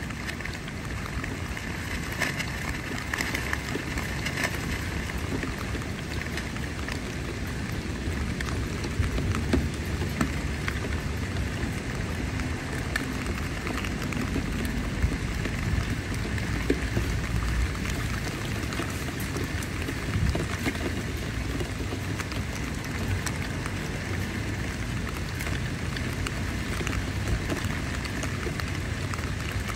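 Rain falling on a tent's fabric: an even hiss dotted with many sharp single drop hits, over a low rumble.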